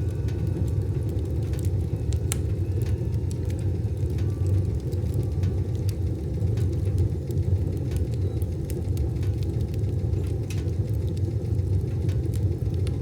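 Wood fire burning in a wood stove: a steady low rumble of flame with irregular crackles and pops, one sharper pop about two seconds in.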